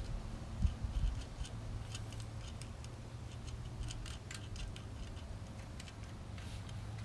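Scattered light clicks and ticks of small hand tools working the screws on the back of a truck's instrument gauge cluster, over a low steady hum.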